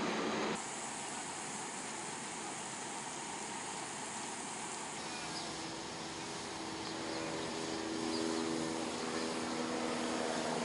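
Water gushing from an open fire hose onto pavement in a steady hiss. It follows half a second of louder noise that cuts off abruptly, and a steady low hum joins about seven seconds in.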